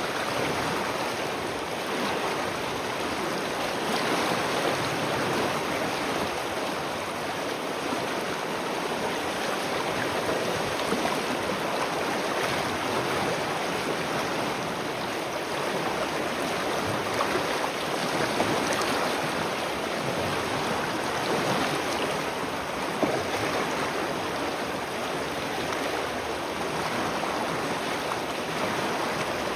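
Water from a spring running steadily, a continuous rushing flow with a faint splashing texture.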